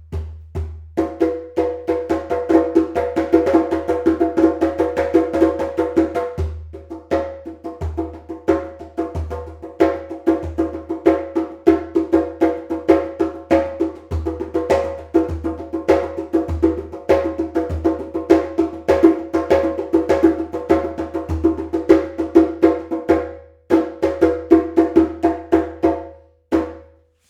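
Djembe with a thick cow-skin head played by hand in a fast, continuous rhythm of many strikes a second, with short breaks about six seconds in and near the end.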